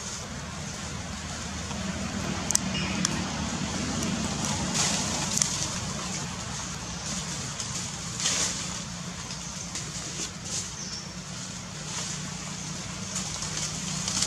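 Dry leaf litter rustling and crackling in short bursts as monkeys move and handle things in it, over a steady low hum of an engine running throughout.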